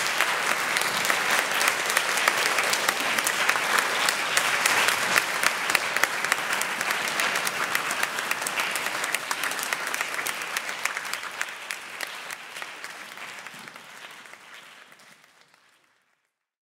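Audience applauding: many hands clapping steadily, fading out from about ten seconds in until it is gone shortly before the end.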